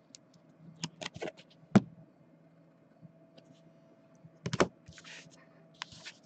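Scattered sharp clicks and taps of hard plastic card holders being handled and set down on a desk: a few light clicks, a louder one a little under two seconds in, a quick group of three about four and a half seconds in, then a brief rustle.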